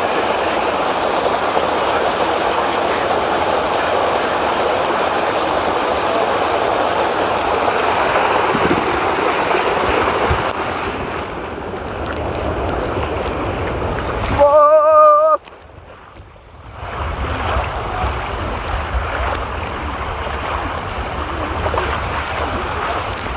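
Water rushing and splashing down a water-slide flume as a rider slides along it on his back. About halfway through, a short wavering cry is the loudest sound. Then the sound cuts off suddenly to a muffled hush for a second or so before the rushing returns with more low rumble.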